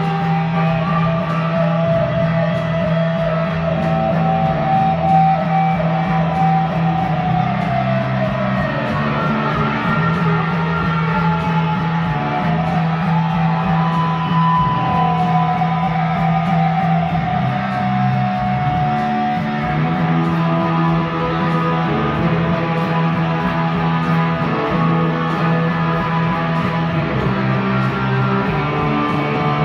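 Guitar-driven rock music: long held lead notes that bend and slide in pitch over a steady low sustained tone.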